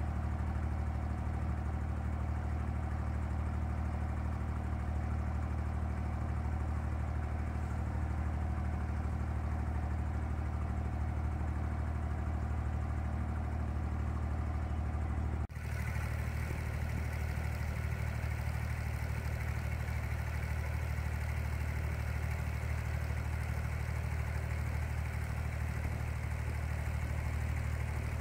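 Wooden abra's diesel engine running steadily, a constant low drone heard from on board. About halfway through the sound drops out for an instant and comes back with more hiss above the engine.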